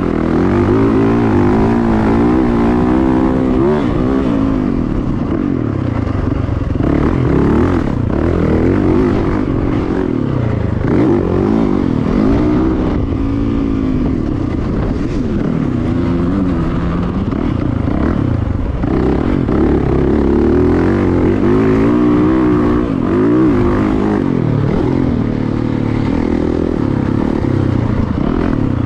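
Yamaha YZ450FX's single-cylinder four-stroke engine, heard from on the bike as it is ridden around a motocross track. It revs up and falls back over and over as the throttle opens and closes through corners and jumps.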